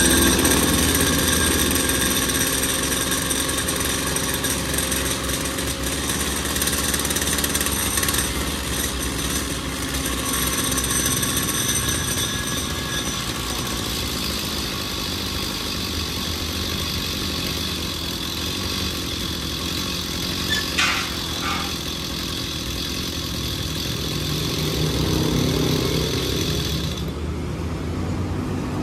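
Backpack brush cutter's small petrol engine idling steadily while its carburetor idle-speed screw is adjusted, bringing the idle down so the centrifugal clutch stays disengaged and the cutting blade no longer spins at idle.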